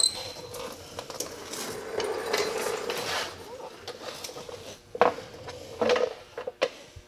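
Metal clinks and knocks from handling front suspension parts: the CV axle is drawn out of the steering knuckle and laid down. A stretch of scraping comes about two to three seconds in, and several sharp knocks come near the end.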